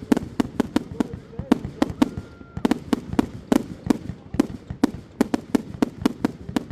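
Fireworks going off: a rapid, irregular string of sharp bangs and cracks, about three or four a second.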